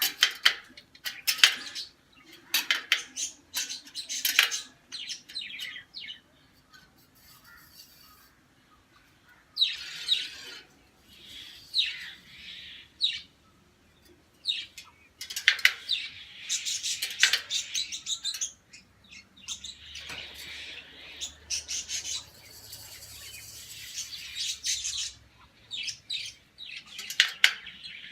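Birds chirping and calling: short sharp chirps at first, then stretches of fast chattering lasting a few seconds each.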